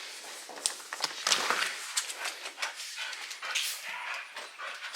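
A dog close by, with an irregular run of short clicks and rustles.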